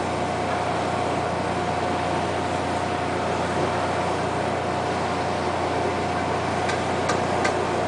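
A fishing boat's machinery running with a steady drone and a constant high hum. A few light clicks come near the end.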